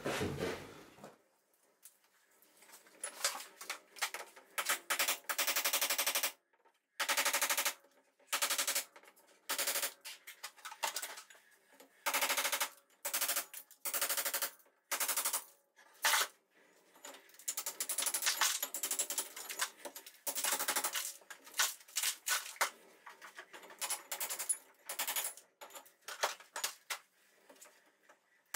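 Power chisel (hammer drill in chisel mode) chattering in repeated bursts of a second or two, chipping away render and brickwork around a fireplace lintel. It starts about two seconds in.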